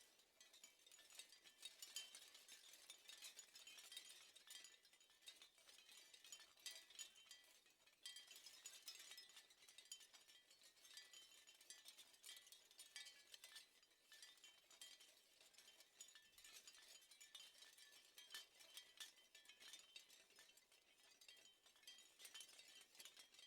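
Shell wind chime: many small shells clinking against each other in a faint, continuous, irregular patter of bright, high clicks that swells and eases every second or two.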